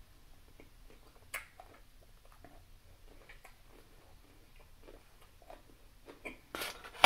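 A person chewing food with close-up mouth sounds: soft wet smacks and a few sharp clicks, with a louder burst of smacking near the end.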